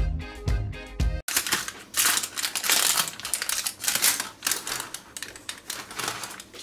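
Background music that cuts off suddenly about a second in, followed by a rapid, irregular run of crisp crackling and rustling handling noises that fade toward the end.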